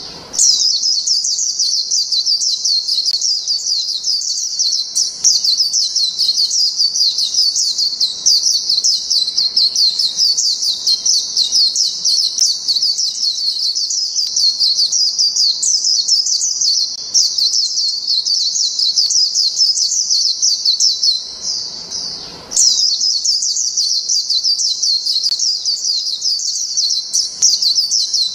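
White-eye (Zosterops) singing a long, rapid, high-pitched twittering song, broken by a short pause a little over twenty seconds in.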